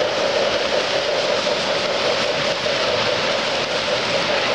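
Model freight train rolling past on O gauge track: wheels running on the rails, with a steady hum under it.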